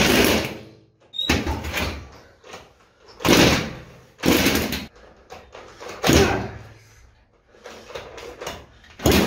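Home-built 376 cc four-cylinder engine made from four Druzhba two-stroke chainsaw engines being kicked over by its kickstarter, a short burst of noise with each kick, about six times, dying away each time without the engine catching and running.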